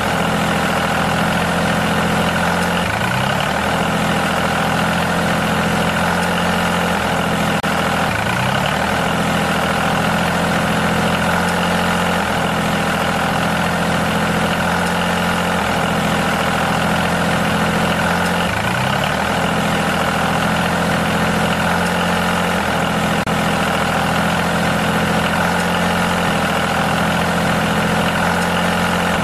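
A motor running steadily with an even, unchanging hum, with a few brief rising sweeps in its low tones.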